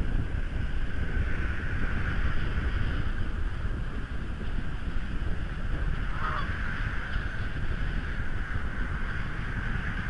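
Steady wind buffeting the outdoor nest camera's microphone in a snowstorm, a low rumble with a hiss over it. A brief bird call sounds once, about six seconds in.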